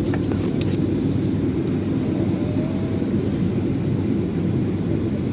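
Steady low roar of a jet airliner cabin in flight: engine and airflow noise, with a couple of faint clicks near the start.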